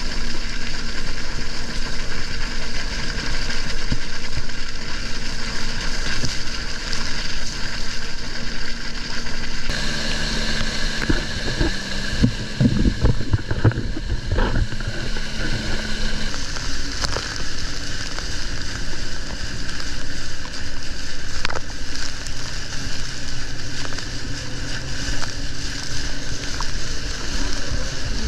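Solar Super Jet 430 inflatable jet boat running, its engine note steady under rushing, splashing water close to the hull. The engine pitch changes about ten seconds in and again some six seconds later, with a spell of heavier thuds and splashing in between.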